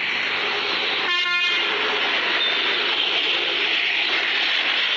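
Steady rushing background noise, with one short vehicle horn toot about a second in.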